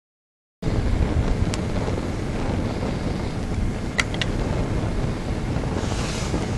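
Large fire burning over a 1/18-scale toy Hummer H1 model: a steady, loud rushing noise that cuts in abruptly about half a second in, with a few sharp pops from the burning model, one at about a second and a half and two close together around four seconds.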